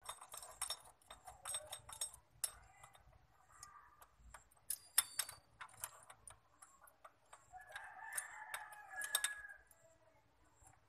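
Steel gear puller jaws and arms clinking and clicking against each other and the crankshaft timing gear as they are fitted by hand, a string of sharp metal clicks with the loudest about five seconds in. A chicken calls in the background, briefly near four seconds and longer from about eight to nine and a half seconds.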